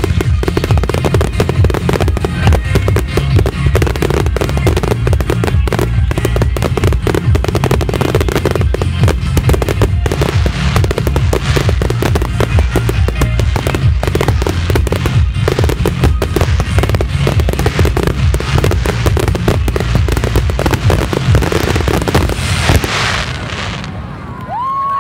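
A dense, continuous barrage of aerial firework shells bursting: rapid overlapping bangs and crackling. It dies away near the end as the last bursts fade.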